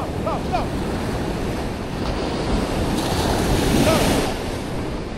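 Ocean surf breaking and washing up the beach, with one wave crashing louder about three to four seconds in.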